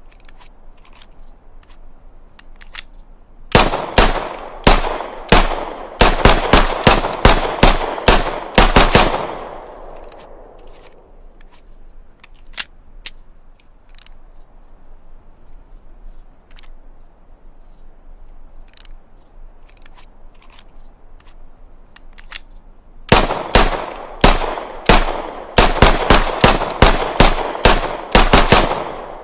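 Browning Hi-Power pistol fired in two rapid strings of about a dozen shots each, several shots a second, each string trailing off in an echo. Faint isolated clicks come in the gap between the strings.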